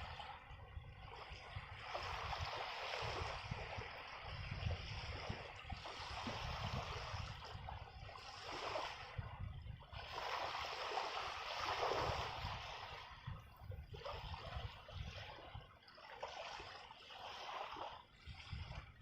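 Water sloshing and lapping in waves that swell and fade every few seconds, with wind buffeting the microphone.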